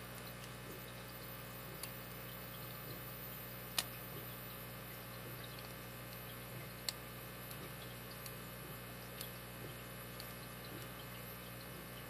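Lock picking a Master Lock 4160 V-line brass padlock: the pick and tension wrench scrape and tick against the pin stack, with scattered small metallic clicks, the sharpest about four seconds in and another near seven seconds. A steady low hum runs underneath.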